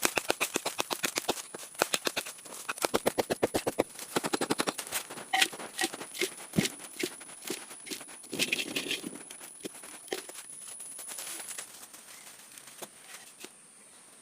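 A rapid series of sharp knocks or strikes, several a second at first, then sparser and fainter until they die away near the end.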